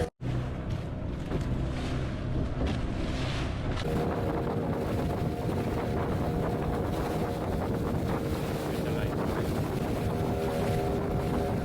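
A small boat's motor running steadily, with wind buffeting the microphone; the engine's tone changes about four seconds in.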